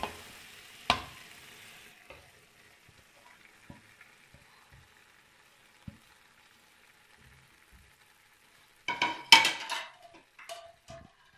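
Steel spoon knocking and scraping against a steel cooking pot as crumbled khoya is added to hot carrot halwa. A faint sizzle fades in the first two seconds, a single knock comes about a second in, and a loud burst of metal clatter comes near the end.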